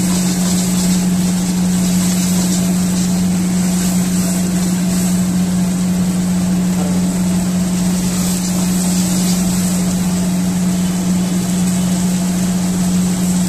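Steady, loud motor hum of commercial kitchen machinery, with a constant hiss over it.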